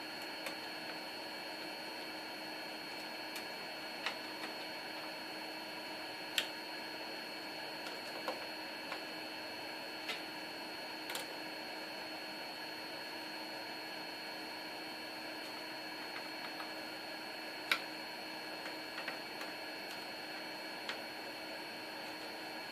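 Scattered light clicks and taps, a dozen or so at uneven intervals, over a steady electrical hum and hiss: small parts handled while a PC is assembled.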